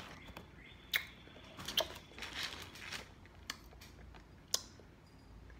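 A few sharp clicks and knocks with some brief rustling, the sound of something small being handled at close range.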